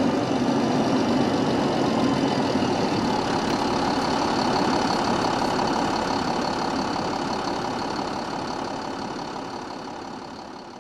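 Cummins ISL 8.9-litre diesel engine of a 2002 Gillig Advantage transit bus running steadily with a steady high whine, fading out over the last few seconds.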